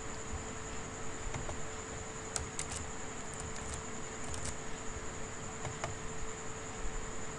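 A few faint clicks of a computer mouse and keyboard, mostly clustered around the middle, over a steady low electrical hum and a high whine.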